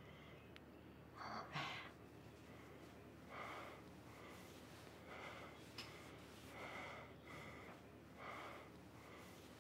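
Faint, short, uneven breaths of a person, coming roughly once a second over quiet room hiss.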